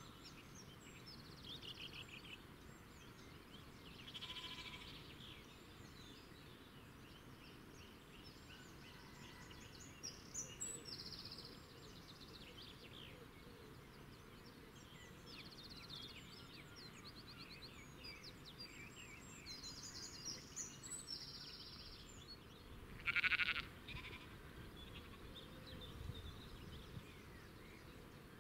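Quiet outdoor background with small birds chirping and twittering in short high phrases, and one louder animal call about three-quarters of the way through.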